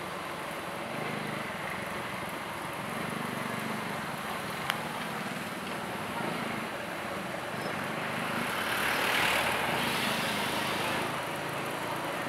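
Motorcycle and tricycle traffic heard from a moving vehicle: a steady engine hum under road noise. A single sharp click comes about five seconds in, and a hiss swells and fades from about eight to eleven seconds in.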